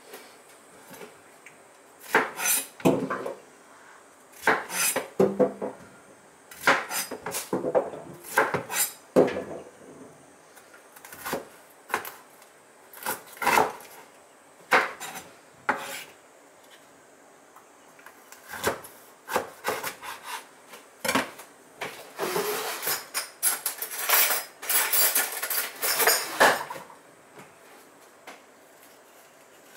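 A kitchen knife cutting bitter melons (goya) in half lengthwise on a cutting board: irregular cutting strokes and knocks of the blade on the board, with a longer, denser run of scraping cuts near the end.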